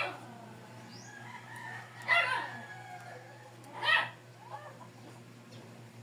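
Rooster calling: three loud calls, one right at the start, one about two seconds in and one about four seconds in, with fainter chicken calls between them.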